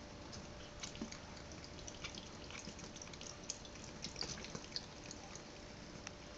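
Thin stream of water from a kitchen tap trickling into a stainless steel sink. Irregular small drips and splashes come through, busiest between about one and five seconds in, as a cat paws at the stream.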